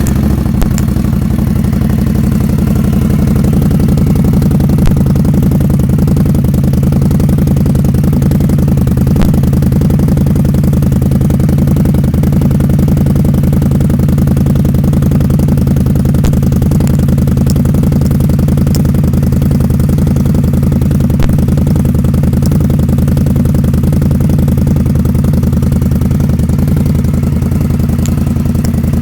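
Indian Scout motorcycle's V-twin engine idling steadily through its exhaust, with no revving.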